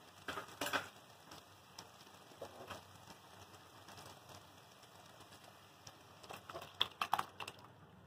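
A few light clicks and taps of kitchen utensils, then a quick cluster of sharper clinks near the end as a steel pot of cooked dal is brought over the kadai to be poured in.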